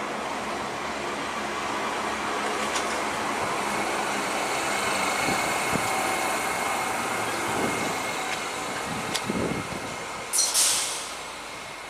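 ScotRail Class 380 electric multiple unit running along the platform: steady rolling and running noise with a faint steady high tone. A short, loud hiss comes about ten seconds in.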